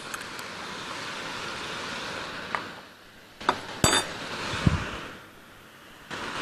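A spoon clinking a few times against a small glass bowl as dried spices are tapped into a pot, over the steady hiss of chicken pieces and onions frying in the pot.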